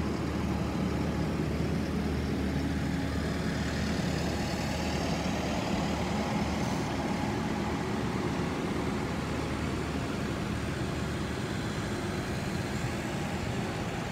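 Farm tractors' diesel engines running in a steady low drone as the tractors drive slowly past one after another.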